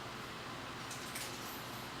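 Faint steady room hiss with a few brief, light metallic scrapes and squeaks from a wrench working the timing belt tensioner on the engine.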